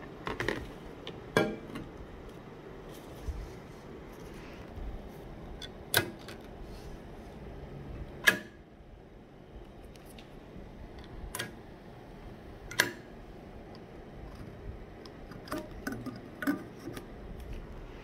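Sharp metallic clinks and clicks from a Lenox Butterfly Meadow tea kettle's steel swing handle and stainless-steel lid being handled and lifted off: about half a dozen separate knocks spread a few seconds apart.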